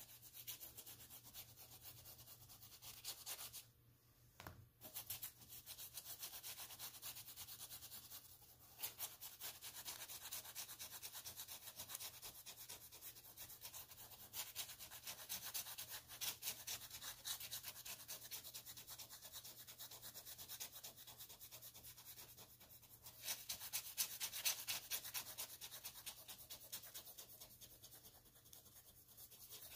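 Light blue oil pastel stick rubbing back and forth on black paper in quick, scratchy strokes, laid over darker blue. It is faint, stops briefly about four seconds in and again near nine seconds, and grows a little louder past the twenty-second mark.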